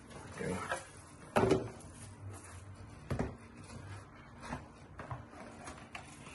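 Rolex watch boxes being unpacked by hand: green inner boxes sliding out of their cardboard outer boxes. There is a series of short knocks and scrapes of box against box and lid, the loudest about a second and a half in.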